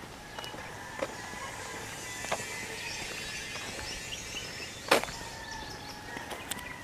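Footsteps on a concrete road: a few scattered sharp steps, the loudest about five seconds in, over a steady outdoor background with faint thin tones.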